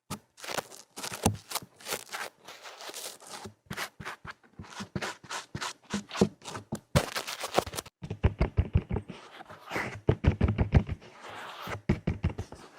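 Close-miked ASMR trigger sounds: a dense, irregular run of quick taps and scratches, with heavier low thuds mixed in from about two-thirds of the way through.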